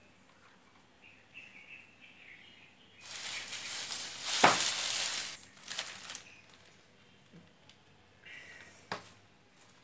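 Rustling of insulating tape being pulled through and wound around a toroidal transformer: a loud, hissy rustle about three seconds in, lasting about two seconds with a sharp snap partway through, a few crackles just after, and a shorter rustle ending in a click near the end.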